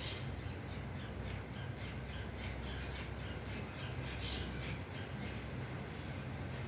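Birds giving a rapid series of short, harsh squawking calls, several a second, with the busiest stretch about four seconds in, over a steady low hum.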